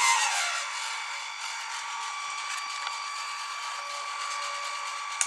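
Small electric water pump in a model fire boat running with a steady whine, together with the hiss of water jets from its monitor cannons. A single sharp click near the end.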